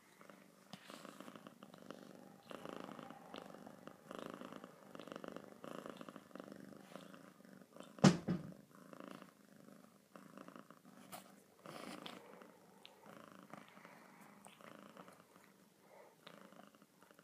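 Domestic cat purring close to the microphone, swelling and fading with each breath about once a second. About halfway through, a single sharp thump, the loudest sound, breaks in.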